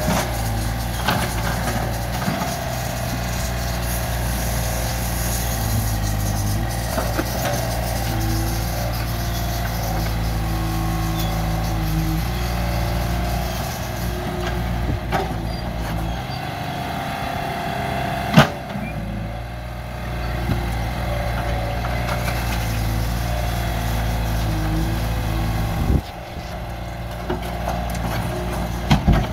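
Mini excavator's diesel engine running steadily as it works, with a few sharp knocks, the loudest about two-thirds of the way through.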